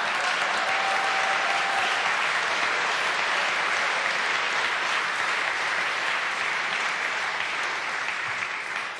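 Studio audience applauding: steady, dense clapping from many people that begins to die down near the end.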